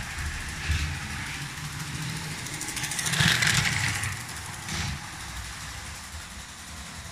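Lego 12V electric train running on its track, a small motor whirring with wheels rattling over the rails, loudest about three to four seconds in as it passes close by.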